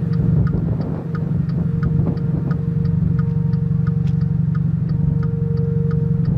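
Steady hum of a running vehicle heard from inside the cabin, with a phone call's steady tone sounding while the call to the weather service connects. Faint regular ticking runs over it at about three ticks a second.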